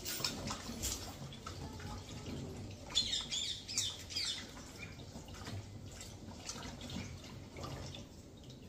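Hands working in water in a large stainless steel bowl: irregular light splashing and dripping with small clicks, a little busier about three seconds in.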